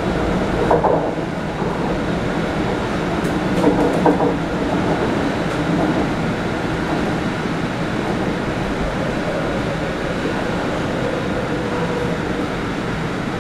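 MTR C-Train electric multiple unit running on the Ma On Shan Line, heard from inside the carriage: a steady rumble of wheels on rails and traction equipment, with a faint steady whine as it pulls alongside a station platform near the end.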